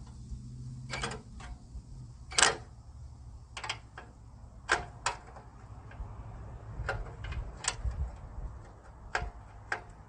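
Hand wrench clinking and clicking against a radiator-support bolt as it is worked and slips: a dozen or so irregular sharp metallic clicks, the loudest about two and a half seconds in. Wind rumbles on the microphone throughout.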